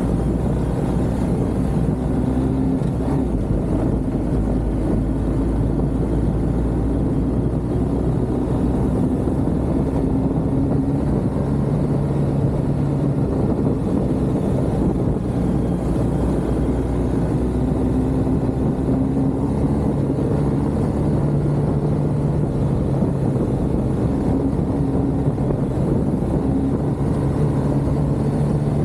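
A motor vehicle's engine running steadily while driving, with a constant low rumble of road and wind noise; the engine note rises and falls slightly as the speed changes.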